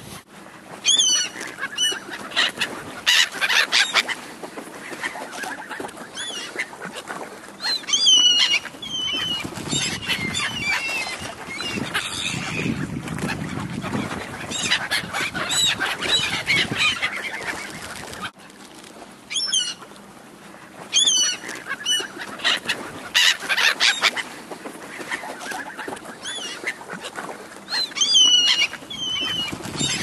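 A flock of black-headed gulls calling and cackling, many harsh overlapping cries that come in loud clusters every few seconds.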